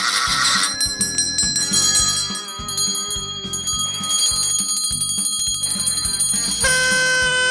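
Party noisemakers one after another: a ratchet's rapid clicking stops just after the start, then party bells are shaken and ring in quick pulses, and near the end a party horn blows one steady, reedy note.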